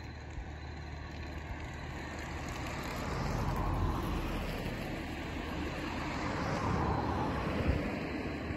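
Road traffic passing: tyre and engine noise swells to a peak about three and a half seconds in and again around seven seconds.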